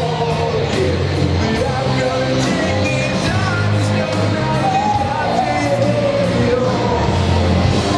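Rock music with a singing voice, a steady bass beat and guitar.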